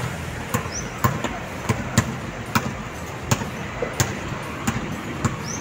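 A basketball being dribbled on an outdoor hard court: about ten sharp bounces, roughly every half second to second, slightly uneven.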